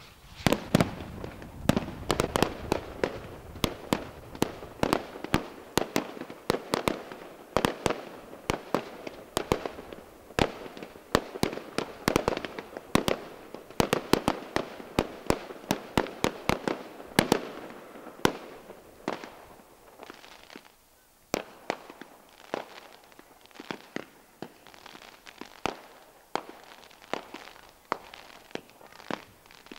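Fireworks display: a rapid barrage of aerial shell bursts, with sharp bangs following close on one another. About two-thirds of the way through they thin out into more scattered bangs.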